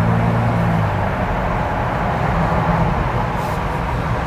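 Steady road, engine and wind noise inside a Ford Bronco Raptor's cabin at highway speed with a window a quarter open. A low steady hum fades out about a second in.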